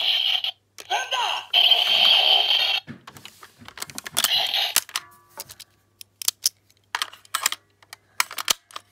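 Zandar Thunder toy sword's electronic sound effects playing from its small built-in speaker in two loud bursts over the first three seconds and briefly again about four seconds in, then sharp plastic clicks and knocks as the sword is handled and turned over.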